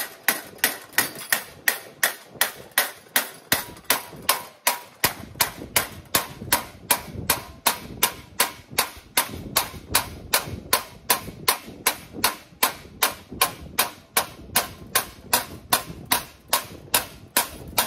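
Steady, even hammer blows on sheet metal, about three a second, closing down a tuck to shrink the panel's edge. The metal rings faintly after each hit.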